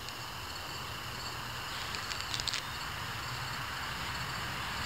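Canada lynx chewing a plush fox toy with a crackle insert: a short burst of sharp crinkling clicks about two seconds in, over steady outdoor background noise.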